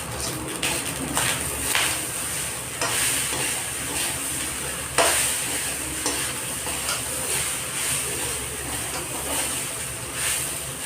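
Rice being stir-fried in a hot pan: a steady sizzle with a spoon scraping and knocking against the pan now and then, the sharpest knock about five seconds in.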